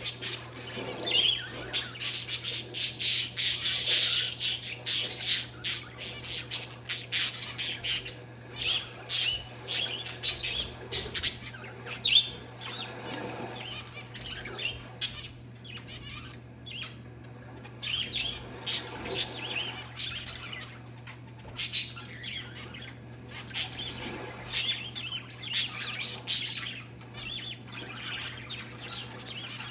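Parakeets and zebra finches chirping and squawking in a flock of rapid, overlapping short calls. The calls are densest for the first ten seconds or so, then thin out to scattered calls.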